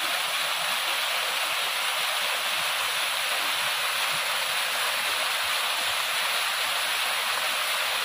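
White water rushing down a rocky cascade close by, a steady hiss-like rush with little low rumble.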